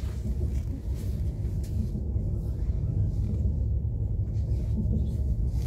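ES2G Lastochka electric multiple-unit train running at speed, heard from inside the carriage as a steady low rumble of wheels on track and running gear, with a few faint light clicks.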